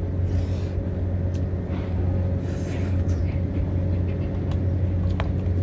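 A steady, low engine hum runs throughout, with two short wet slurps of noodles, one near the start and one about two and a half seconds in, and a couple of small clicks.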